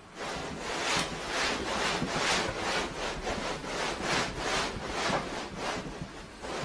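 Long-haired cat rolling and squirming on a shaggy rug, its fur and claws rubbing and scratching the pile in a run of rasping swishes, about three a second, that stop shortly before the end.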